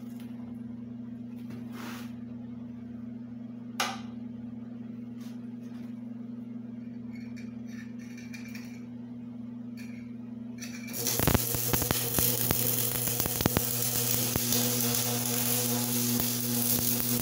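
Electric arc welder humming steadily at idle, with a single click about four seconds in; about eleven seconds in the welding arc strikes and crackles and sizzles continuously.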